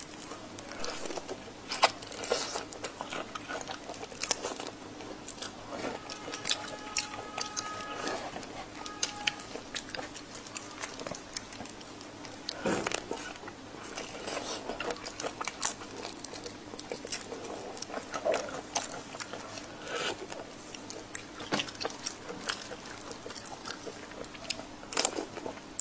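Raw shrimp in chili sauce being peeled by gloved hands: shells cracking and pulling off with many irregular wet clicks and crackles.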